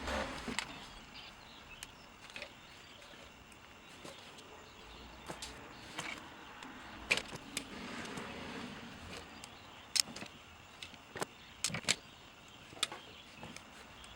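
Irregular sharp clicks and light taps of hand tools and wires being handled, scattered over a low steady background.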